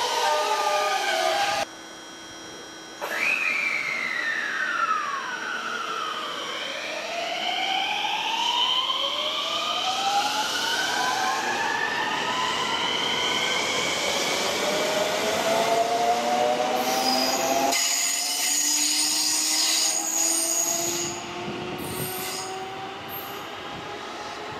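Electric commuter train running through the station, its traction motor inverter whining in several gliding tones that mostly rise as it gathers speed, over rail noise. The sound drops sharply for about a second near two seconds in, and thin high tones come in toward the end.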